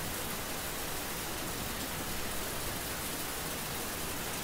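Steady, even hiss of the recording's background noise, with no other sound.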